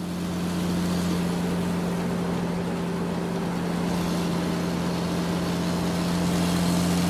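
Steady drone of a heavy vehicle's engine, as from a truck on a highway, with a constant low hum and a wash of road noise, swelling slightly near the end.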